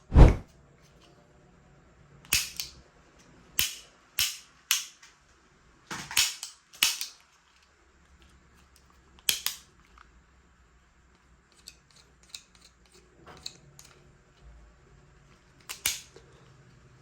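Toy spring-powered gun snapping and clicking: a heavy thump at the very start, then a string of sharp, single snaps at irregular gaps, with a run of fainter clicks later on.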